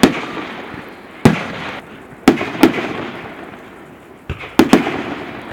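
Display fireworks bursting overhead: about seven sharp bangs, some close together, each trailing off in a fading rumble.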